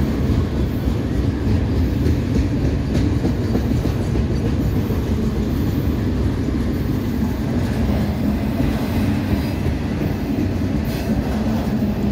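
Freight train of autorack cars rolling past: a steady rumble of steel wheels on the rails, with a few faint clicks over the rail joints.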